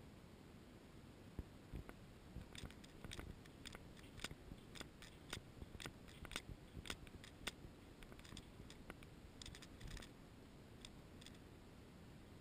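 A scattered run of light, sharp clicks and ticks, a few a second, starting about a second and a half in and dying away near the end, over a near-quiet background.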